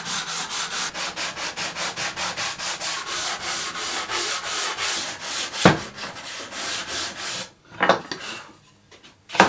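Hand sanding the edges of Swiss stone pine boards with a sanding block: rhythmic back-and-forth rasping strokes, about four a second. A sharp knock about six seconds in; the sanding stops about a second later, followed by a couple of knocks.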